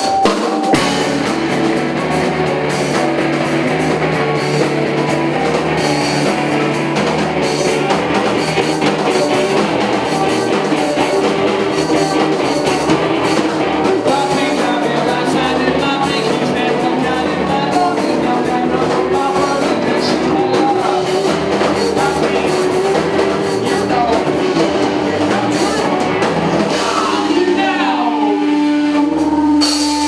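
Live rock band playing: electric guitars over a drum kit, steady and loud, with sliding guitar notes near the end.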